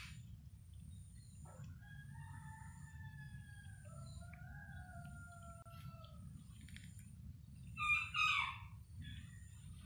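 A rooster crowing: one long drawn-out crow that drops lower in its second half. Two short, louder calls follow about eight seconds in.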